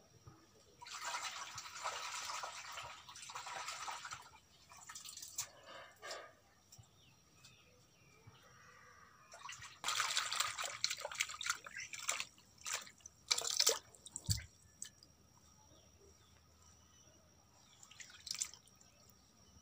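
Hands swishing and squeezing leafy greens in a pot of water as they are washed, splashing in irregular bursts with quiet pauses between.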